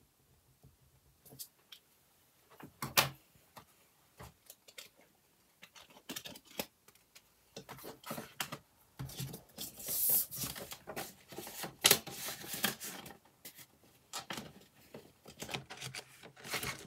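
Handling noise from a cash-envelope budget binder: paper, card and plastic sleeves rustling, with scattered clicks. A sharp click comes about three seconds in, and the rustling grows busier from about six seconds on.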